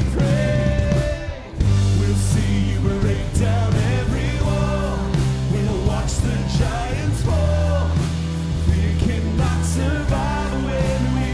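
Live worship band playing a rock-style song, with singers over electric guitars, bass, keyboard and drums; the music dips briefly about a second and a half in, then comes back in full.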